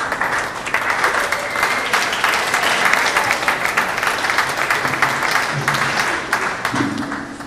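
Audience applauding, dense steady clapping throughout.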